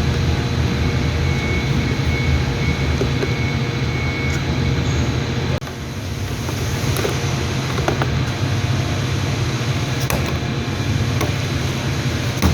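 Steady low mechanical hum of a running machine, with a few light clicks and taps over it.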